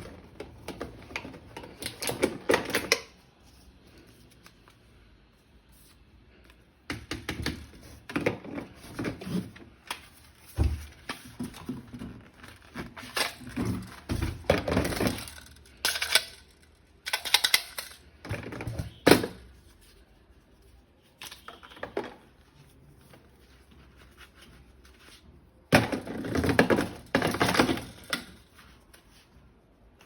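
Hard plastic being handled: bursts of clicking, clattering and knocking, with quiet gaps between them.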